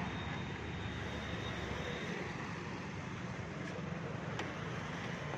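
Steady background rumble with a low hum, like distant traffic, with a faint high tone over the first two seconds and a few faint clicks.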